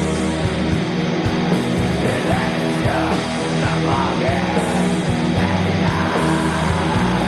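Heavy metal music: loud distorted guitars over a steady pounding drum beat, with harsh yelled vocals coming in a couple of seconds in.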